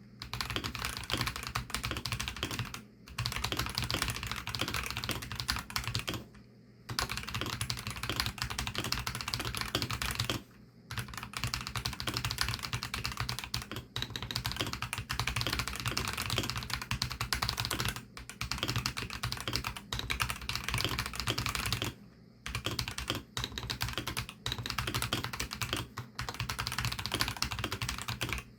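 Fast, continuous typing on a Varo V87 mechanical keyboard with Varo Orange 53 g tactile switches: a dense stream of rapid keystrokes, broken by brief pauses about three, seven, eleven and twenty-two seconds in.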